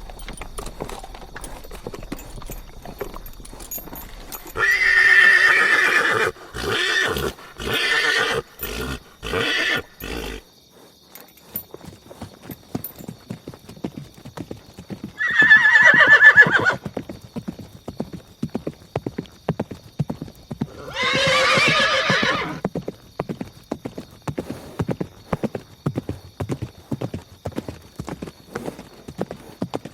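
Galloping horse hoofbeats in a fast, continuous run, with a horse whinnying three times. The first whinny comes about five seconds in and breaks into a string of short choppy pieces; the next two come about fifteen and twenty-one seconds in.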